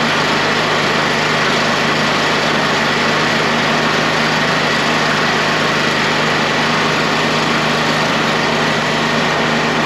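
Portable band sawmill's engine idling steadily with a constant hum, not under cutting load.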